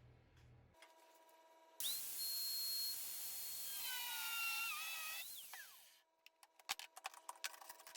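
A small high-speed power tool whines up to speed, then its pitch sags as it bears into the sheet-steel patch piece, before it is released and spins down. A rapid run of sharp clicks and taps follows near the end.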